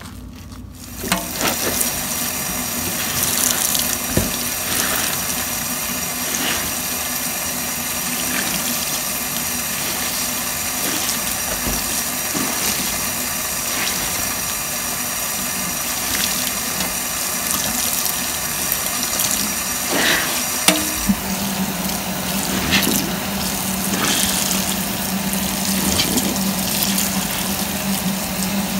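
A kitchen tap is turned on about a second in and runs in a stream into a sudsy stainless-steel sink. Wet sponges are squeezed and rinsed under the stream, with scattered short wet squishes. A low steady hum joins about two-thirds of the way through.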